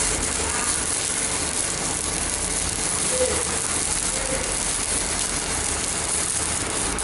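Stick-welding arc from a CNR 120 welding machine burning a 4 mm electrode: a steady, unbroken crackling sizzle.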